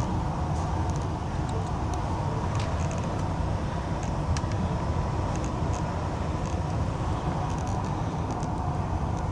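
Steady mechanical hum and noise, with a few faint clicks and taps scattered through it.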